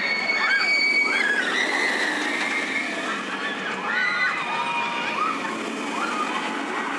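The Swarm, a steel wing roller coaster, with its train rushing along the track overhead in a steady rush of wheel and track noise. Riders are screaming over it, their cries rising and falling, one held high for about the first second.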